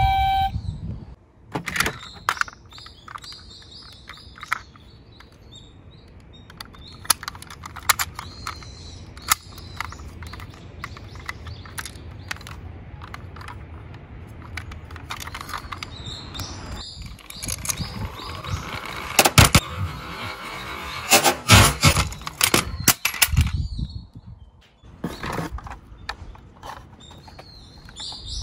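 Die-cast Tomica toy cars rolling down a slope: a low rolling rumble with many sharp clicks and clacks. The clatter grows busier and louder in the second half.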